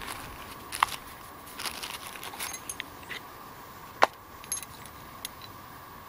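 Small hard objects clinking and clicking while a suede pouch is handled and opened, with rustling. There is a sharp ringing click about a second in and a louder click at about four seconds.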